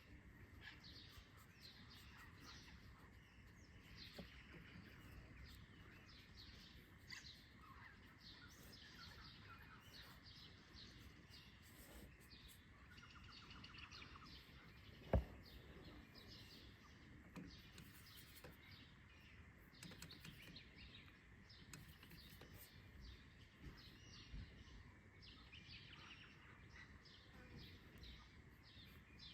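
Faint dawn chorus of birds chirping and calling, many short repeated chirps over a quiet outdoor background. One sharp click about halfway through stands out as the loudest sound.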